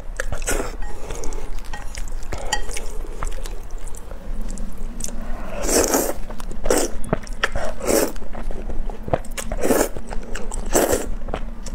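Close-miked mouth sounds of a person eating instant noodles: strands slurped up from chopsticks, with wet chewing between mouthfuls. The louder slurps come about once a second in the second half.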